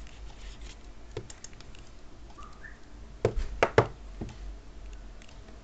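Cardboard packaging being handled: the card insert of an iPhone box lifted out by its tab, with light scraping and a quick cluster of three or four sharp clicks and taps a little over three seconds in.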